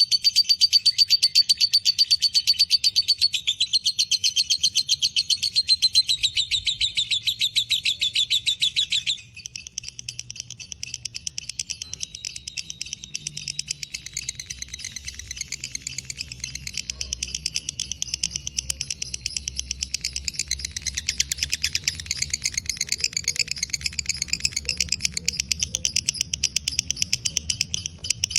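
Lovebird 'ngekek': a long, rapid chattering trill of fast repeated high notes. It is loud for the first nine seconds or so, then continues more softly.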